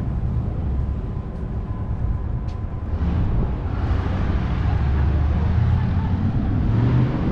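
Steady low outdoor rumble, with a hiss that swells about halfway through and eases near the end.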